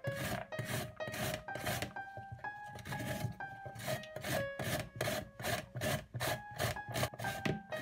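Green papaya being shredded on a shirishiri-ki, an Okinawan wooden julienne grater with a metal blade plate: rasping strokes, about two a second.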